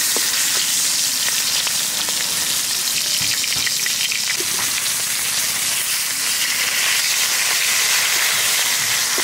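Hilsa fish head frying in hot oil in a metal karai: a steady, loud sizzle with a few faint pops.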